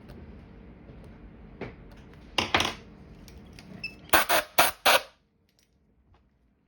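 Short scratching and clicking strokes of a small tool working in an iPhone 6s Lightning charging port: one, then a pair, then four quick ones near the end, over a low steady hum that cuts off about five seconds in.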